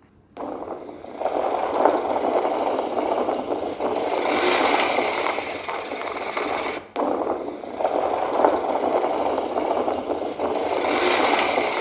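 Adventure motorcycle with pannier bags being ridden into brush and a tree: a dense, loud scraping and rattling of branches against the bike and bags. The sound breaks off sharply for a moment about seven seconds in, then carries on.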